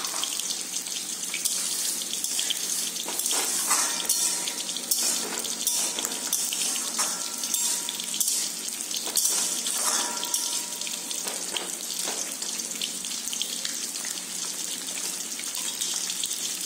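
Watery dal and vegetables heating in an aluminium kadai over a gas flame, a steady hiss and bubble, with a plastic spatula stirring and scraping against the pan now and then.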